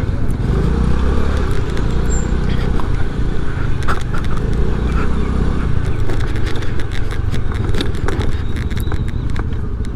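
Honda Dio scooter's small single-cylinder engine running at low speed as it rolls across a rough dirt parking lot, with frequent short knocks and rattles from the bumpy ground.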